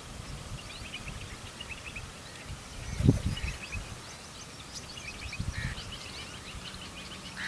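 Small birds chirping, many short high chirps overlapping, over a low rumbling noise that swells into the loudest moment about three seconds in and again briefly past five seconds.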